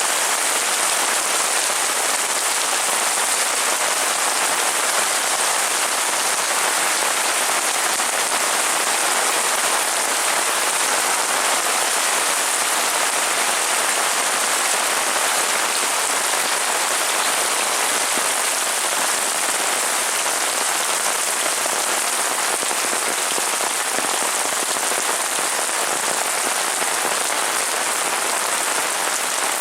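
Heavy rain pouring steadily, an even hiss of drops hitting surfaces with no let-up.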